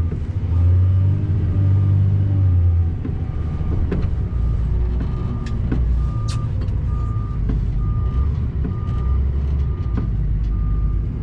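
Truck engine running, its pitch rising and falling over the first few seconds, then a reversing alarm beeping evenly, about three beeps every two seconds, from about three seconds in.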